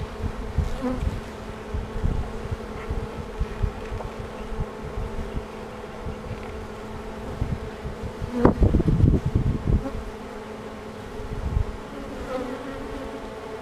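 Honeybees from a newly hived swarm buzzing at the entrance of a nuc box, a steady hum. About eight seconds in, a short burst of knocks and rubbing close to the microphone.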